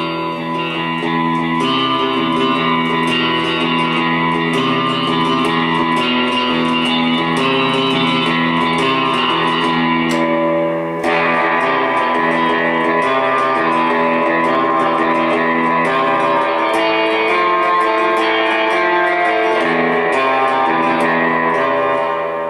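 Electric guitar played through a Gomez El Sonido 50-watt Bassman-clone tube amp, picking a continuous run of notes and chords with a brief dip about halfway through.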